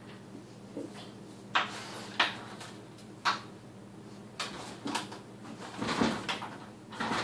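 Plastic flap of a small dog door knocking and rattling as a dog pushes through it: a few sharp knocks, then a longer run of rattling from about halfway in as the dog squeezes its body through the opening.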